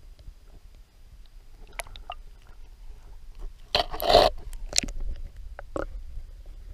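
Handling noise from an underwater camera: scattered clicks and knocks against the creek bed over a low rumble, with one loud crunching scrape about four seconds in and a few sharper knocks after it.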